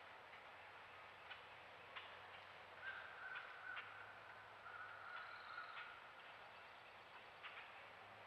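Near silence: the trail camera's own microphone hiss in still woodland, with a few faint ticks and a faint steady high tone lasting about three seconds in the middle.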